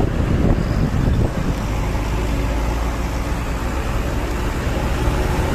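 Heavy road vehicle's engine running close by, a steady low rumble amid traffic noise.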